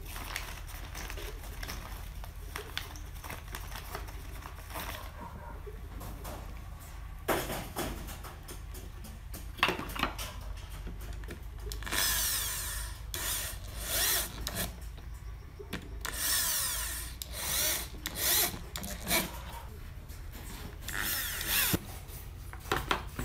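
Power drill driving screws into pine boards in several short bursts of about a second each, with a few sharp knocks of wood being handled in between.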